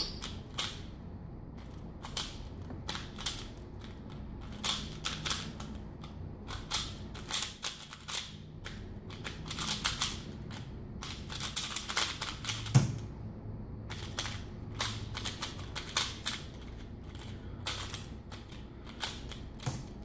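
Plastic 3x3 speedcube, a Cubicle Valk, being turned fast by hand in a timed solve: quick runs of sharp clicking and clacking layer turns, broken by a couple of brief pauses.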